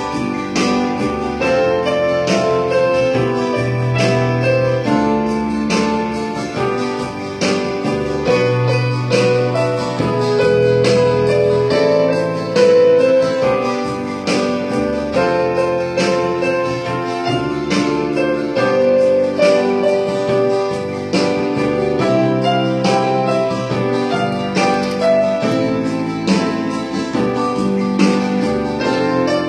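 Electronic keyboard played with both hands: a steady stream of melody notes over lower notes held for a second or two at a time, running on without a break.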